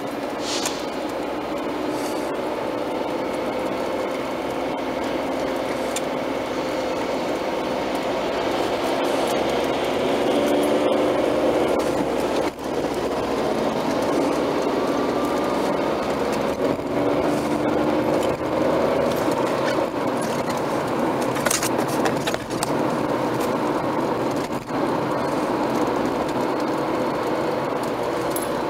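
Road and engine noise inside a moving car at motorway speed: a steady rush with a hum whose pitch drifts slightly up and down as the speed changes. There are a few brief sharp clicks.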